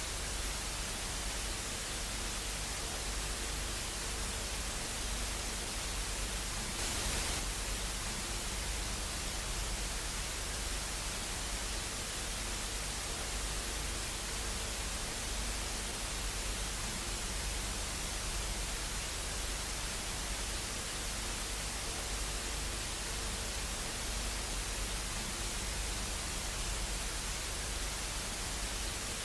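Steady static hiss, like a broadcast off the air, with a faint hum beneath it. A brief louder surge of hiss comes about seven seconds in.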